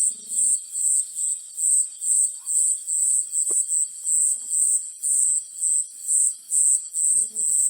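An insect chirping steadily in a high, even pulse, about two chirps a second. A short, low, rattling call, like a frog's croak, comes in near the end.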